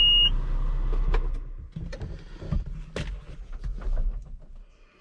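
A short high electronic beep, then a low rumble for the first second and a half, with several sharp knocks and clunks through the rest.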